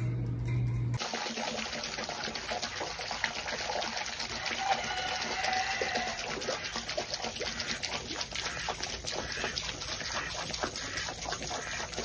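Garden hose spraying into a shallow plastic wading pool, water splashing and trickling steadily around a bathing duck.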